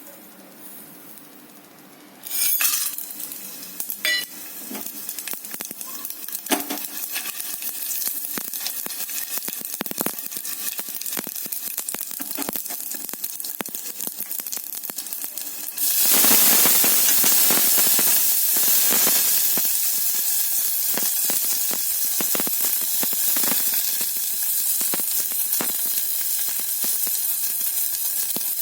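A pumpkin fry sizzling in hot oil in a pan. The sizzle starts suddenly about two seconds in, with a few sharp clinks of a utensil, and grows clearly louder a little past halfway.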